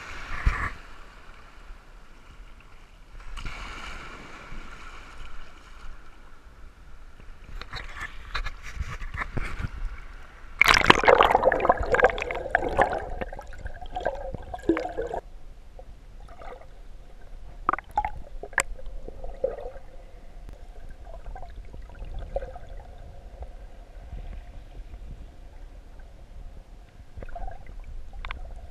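Seawater sloshing and gurgling around a GoPro in its waterproof housing as it moves through shallow water, much of the time submerged. There is a louder stretch of sloshing about ten seconds in, and scattered small clicks throughout.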